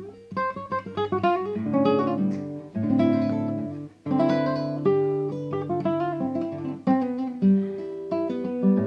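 Acoustic guitar improvising: quick picked runs of notes over held bass notes, with a brief pause about four seconds in.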